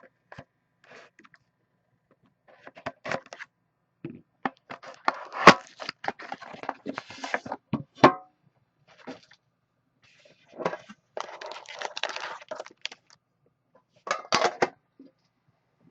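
Card-box packaging being torn and opened by hand, with crinkling wrapper, rustling and sharp cracks in irregular bursts, the sharpest crack about five and a half seconds in.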